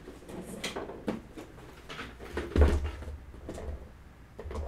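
Handling noises on a workbench: a series of light knocks and clicks, with a heavier thump about two and a half seconds in.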